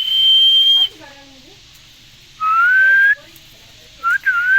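Indian green parrot whistling three long, clear notes: a high, steady one, then two lower ones that each rise a little. Faint soft chatter fills the gaps between them.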